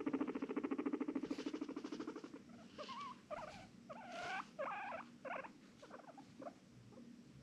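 Guinea pig rumbling, a rapid pulsing purr, which fades out about two seconds in; it is followed by a string of about six short squeaking calls that bend in pitch, soft wheeks.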